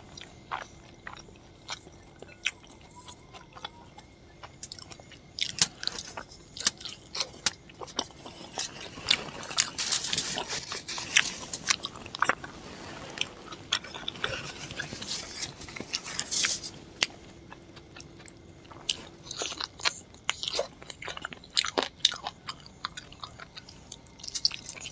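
Close-miked chewing and biting of luchi with chicken curry: many short wet clicks as the food is eaten by hand, busier in the middle of the stretch.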